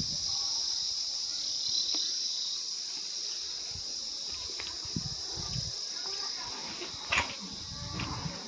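Steady high-pitched insect chorus, with a few soft low thumps about five seconds in and a short sharp click near the end.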